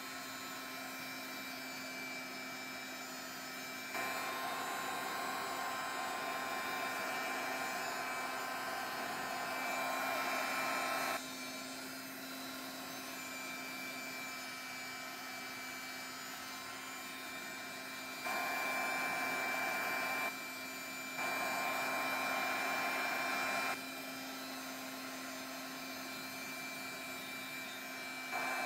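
Craft heat gun blowing hot air to dry wet paint stain on a card, switched on and off in bursts: a long one of about seven seconds, two short ones a little later, and another starting at the very end. Each burst starts and stops abruptly.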